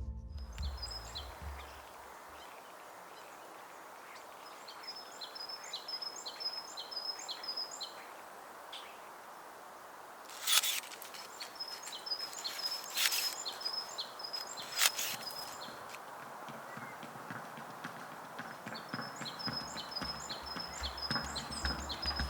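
A songbird singing a short phrase of rapid high notes, repeated about four times with pauses between, over a quiet outdoor background. Three sharp clicks or taps come in the middle.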